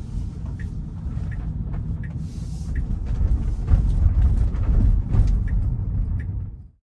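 Car cabin noise while driving slowly through a parkade: a steady low road rumble with a short tick repeating about every 0.7 s. The sound cuts off abruptly near the end.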